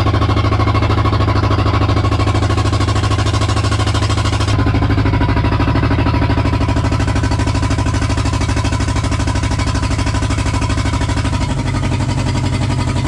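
Fishing boat's engine running steadily, with a fast, even pulse. Its note changes abruptly about four and a half seconds in and again near the end.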